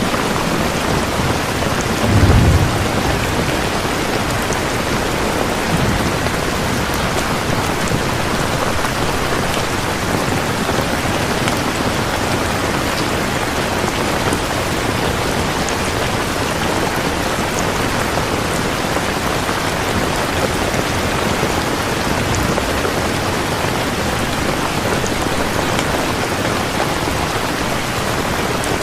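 Steady, heavy rain falling in an even hiss, with a brief low rumble about two seconds in.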